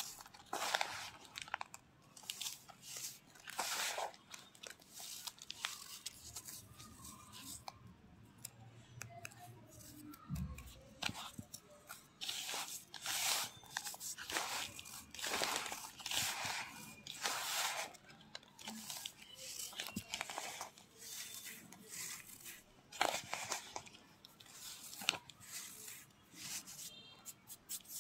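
Fingers squeezing and crumbling damp naphthalene (mothball) powder mixed with kerosene in a bowl: irregular gritty crunching strokes, roughly one a second.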